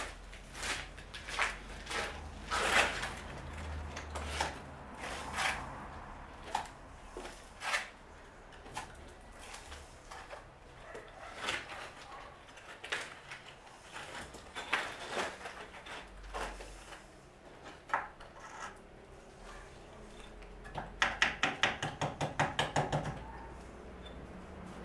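Steel mason's trowel scraping and clinking against a mortar board and the wall as mortar is picked up and spread, in scattered scrapes and knocks. Near the end comes a quick run of about a dozen sharp taps, some five a second.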